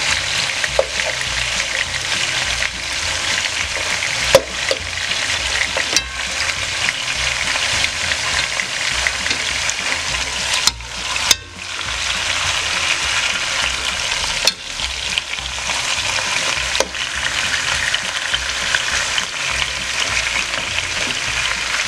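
Beef short ribs sizzling steadily as they fry in hot oil in a pot, with a few sharp clicks of a metal fork against the pot as the pieces are turned. The sizzle dips briefly about halfway through.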